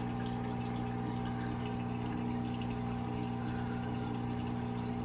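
Turtle tank water filter running: a steady motor hum under an even wash of moving water.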